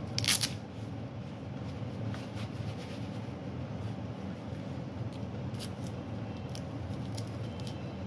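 Velcro wrist strap of a leather fingerless glove ripped apart in one short rasp, followed by a few faint ticks of the glove being handled, over a steady low hum.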